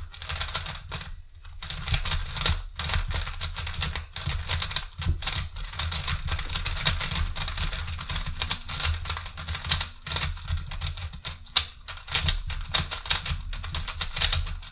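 GAN 356 i Carry magnetic smart speedcube being turned by hand: a continuous, irregular run of plastic clicks and clacks as the layers snap round. The cube is awfully tight, so the turns are stiff.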